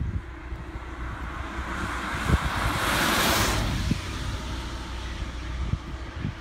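A car passing on a wet road, its tyres hissing louder as it nears, loudest about three seconds in, then fading away. Wind rumbles on the microphone throughout, and there is a brief thump about two and a half seconds in.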